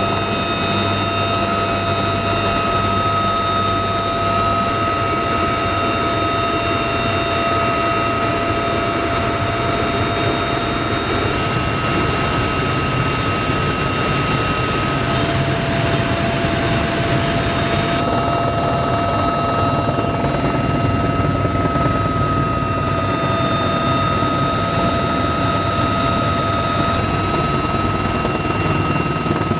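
Interior noise of a CH-53K King Stallion heavy-lift helicopter running, heard from the cabin: a dense, steady rotor and engine rumble with a constant high turbine and gearbox whine. The whine shifts slightly in pitch a few times.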